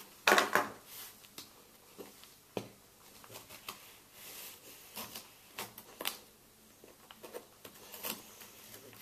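A knife scraping and cutting at a cardboard box's seam: a loud scrape just after the start, then scattered short scratches and ticks of the blade and hands on the cardboard.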